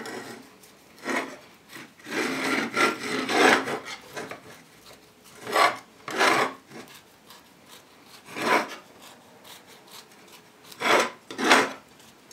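A knife sawing into the side of a baked chocolate sponge cake, making rasping scraping strokes. They come in short runs and single strokes with pauses between, a cluster about two seconds in and a close pair near the end.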